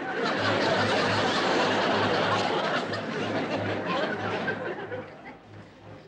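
Sitcom laugh track: a burst of audience laughter that swells at once and fades out over about five seconds.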